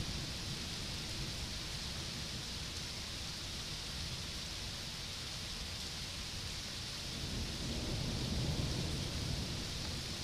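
Steady hiss of rain falling during a thunderstorm. About seven seconds in, a low rumble of distant thunder swells and then fades.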